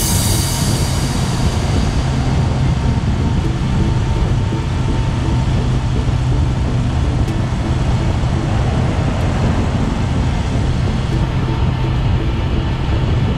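Honda 400X's parallel-twin engine running at a steady cruising speed, with an even rush of wind and road noise.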